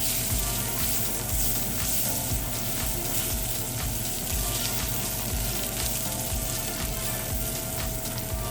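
Mushrooms sizzling in a hot skillet: a steady frying hiss dotted with small crackles, over background music with a low beat.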